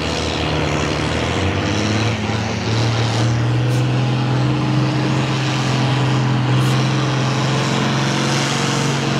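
John Deere farm tractor's diesel engine running hard under full load as it drags a weight-transfer pulling sled, a steady loud drone that climbs slightly in pitch about two to three seconds in.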